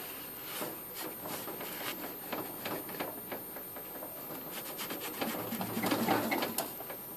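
A cloth rubbing and wiping over an old electric hot plate's rusty metal burner plate and casing: irregular scuffs and rustles, busiest and loudest about five to six seconds in.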